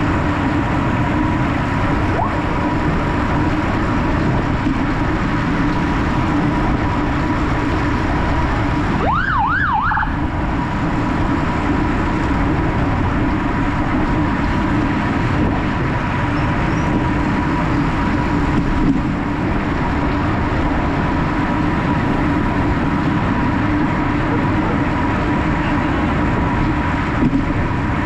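Steady rush of wind and road noise from a road bike riding at speed. About nine seconds in, a siren gives a short yelp of three quick rising-and-falling sweeps lasting about a second.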